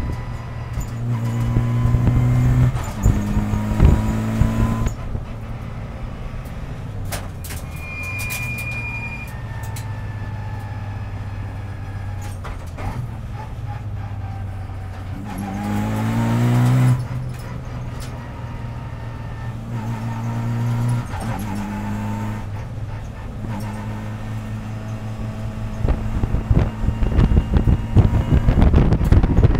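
Renault Clio Cup race car's engine heard from inside the cockpit, running at moderate revs and stepping up and down with gear changes between third and second. About fifteen seconds in, the revs climb under acceleration. Near the end a loud, rough rattling comes in over the engine.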